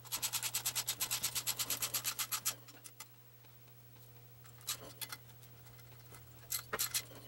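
Hand socket ratchet clicking fast, about eight clicks a second, as it runs steel nuts down the cylinder-head studs of a 1950 Jacobsen engine. The clicking stops about two and a half seconds in, and a few faint single clicks follow later.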